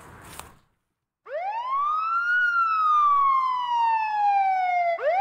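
Police-style siren wail, added as a sound effect: a tone that sweeps up quickly and then falls slowly, starting over near the end. It comes in after the outdoor sound cuts to dead silence about half a second in.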